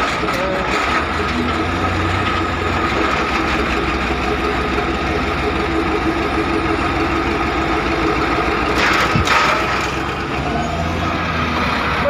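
Heavy diesel engine idling steadily, with a brief hiss about nine seconds in.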